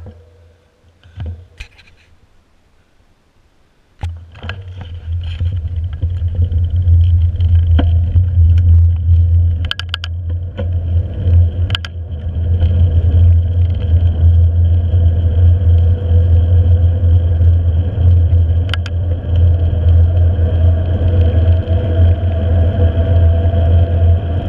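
Wind buffeting the microphone of a handlebar-mounted camera on a mountain bike descending fast on a paved road: a steady deep rumble that starts suddenly about four seconds in, with occasional clicks and rattles. A faint whine rises in pitch over the last few seconds. Before the rumble there are only a few faint clicks.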